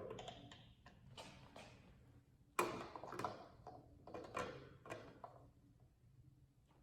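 Faint, scattered clicks and knocks of hands handling parts while getting ready to fill a motorcycle oil tank. A sharp knock about two and a half seconds in is the loudest, followed by a few lighter taps.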